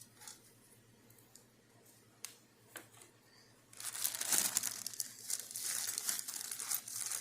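A few light clicks, then from about four seconds in a rough crackling, tearing noise as the intake manifold is worked loose and lifted off a Cadillac 472 big-block V8.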